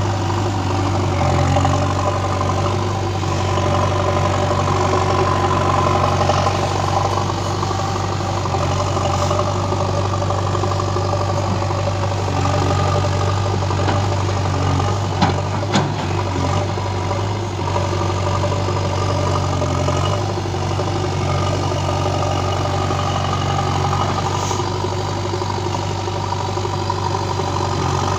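JCB 3DX backhoe loader's diesel engine running steadily with a low drone as the machine works its front loader bucket in sand. Two sharp knocks come about halfway through.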